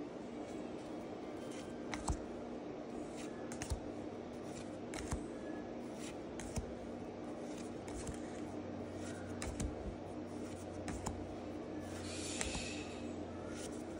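Pokémon trading cards being flipped through one at a time by hand, each card slid across the stack with a light click about every second and a half, over a steady low hum.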